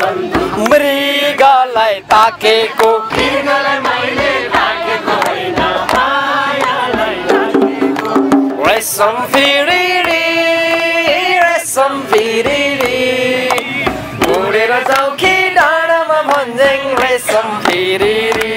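Group sing-along: a man sings, with others joining in, to a strummed acoustic guitar and a hand-played drum.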